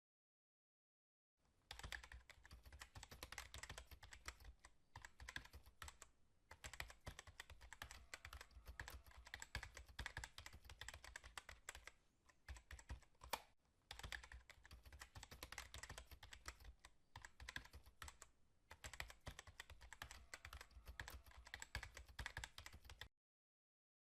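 Keyboard typing: fast, uneven clicks in long runs broken by a few short pauses. They start about a second and a half in and stop about a second before the end.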